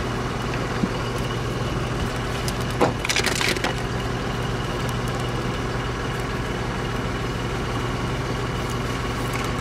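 Pieces of the mast's smashed internal cable conduit being pulled and shaken out of the foot of a yacht mast: a couple of sharp clicks, then a brief rattle of broken pieces about three seconds in. A steady machine hum runs underneath.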